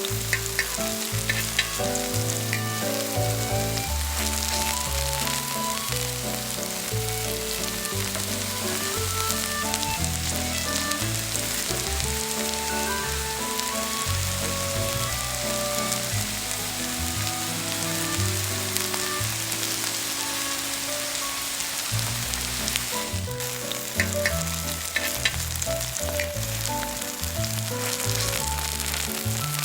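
Korean vegetable pancake (채소전) batter frying in plenty of oil in a pan, sizzling steadily, with background music playing.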